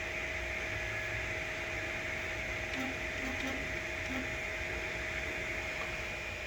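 Desktop FDM 3D printer running: a steady whine and hum from its stepper motors and cooling fans, with a few short low stepper notes about three to four seconds in.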